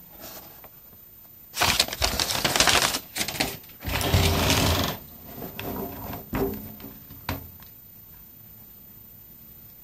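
Handling noise: a paper instruction sheet rustling and crinkling in two loud spells. After them come a few lighter knocks and clicks as the small compressor and its cigarette-lighter plug are picked up.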